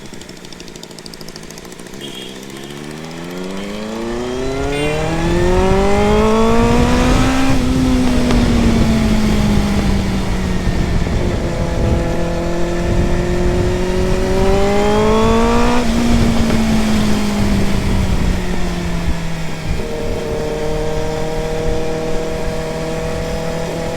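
Benelli sport motorcycle accelerating on the road: its engine note climbs for several seconds, eases off, climbs again, then settles to a steady cruise, with wind rushing over the microphone.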